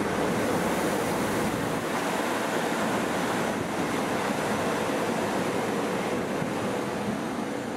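SEPTA electric multiple-unit train cars rolling close past, a steady rushing of steel wheels on rail and running gear that eases slightly near the end.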